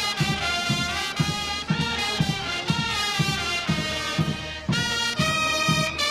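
Background music with a steady beat of about two thumps a second under held, brass-like notes.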